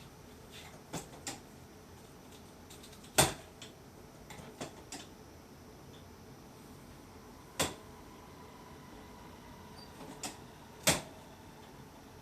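Chiropractic drop-table headpiece snapping down with three sharp clacks, well spaced, during toggle recoil drop adjustments of the atlas (C1); fainter clicks fall in between.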